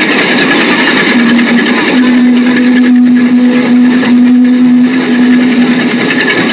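Fishing cutter's engine running steadily, heard as a constant drone that sets in about a second in and fades near the end, over a steady hiss.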